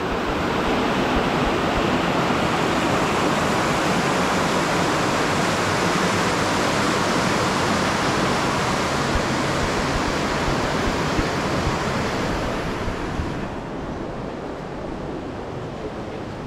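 Steady rush of flowing water, loud and even, fading down about three-quarters of the way through.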